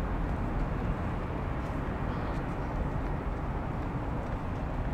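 Steady low rumble of distant city traffic, an even hum with no distinct events.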